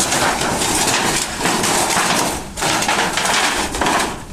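A hammer striking thin galvanized sheet steel as an old metal trunk is knocked apart into flat panels, in quick, dense blows with the clatter of the loose sheets. The blows ease off briefly about halfway through.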